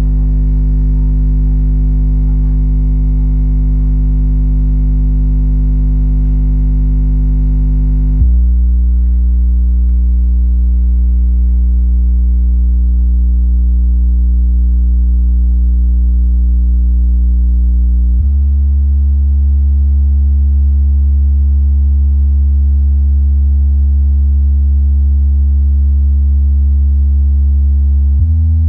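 MTX subwoofer, driven by an LM Plutonium monoblock amplifier bridged into 2 ohms at about 400 watts, playing loud steady bass test tones. The tone steps to a new pitch about eight seconds in, again about eighteen seconds in, and once more near the end.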